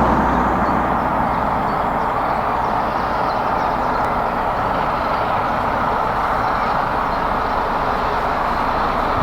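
A steam-hauled express train running through the station: a steady rumble and hiss of wheels on rail, with no distinct exhaust beats.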